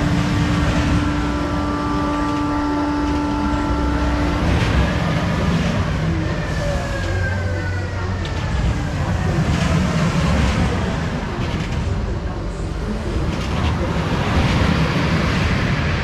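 Spinning-disc amusement ride rolling back and forth along its U-shaped track: a steady mechanical rumble that swells and eases as the disc swings, with a held hum that stops about four seconds in. People's voices are mixed in over the ride noise.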